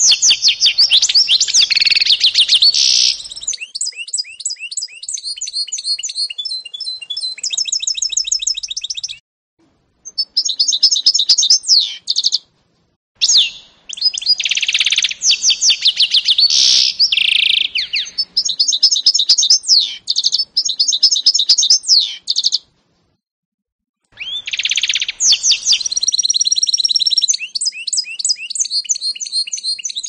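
Canary–goldfinch mule (a canary × European goldfinch hybrid) singing: long phrases of fast trills and rapidly repeated chirps, broken by three short pauses.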